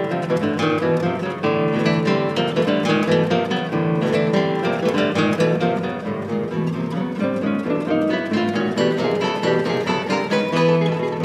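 A quartet of nylon-string classical guitars playing together: a dense, fast stream of plucked notes over held low bass notes, with strummed chords.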